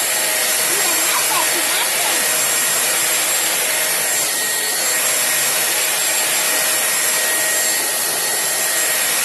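Britânia 1000 W upright vacuum cleaner running steadily, a loud rushing airflow with a constant motor whine, as it sucks up biscuit crumbs from the floor.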